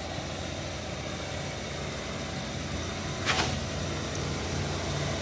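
Heavy diesel engine of a concrete truck running steadily at a low hum. A short sharp sound comes a little over three seconds in.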